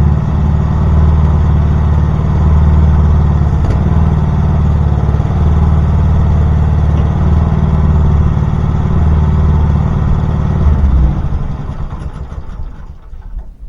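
Small gasoline engine of a Champion 37-ton log splitter running steadily, then shut off about eleven seconds in, the sound dying away.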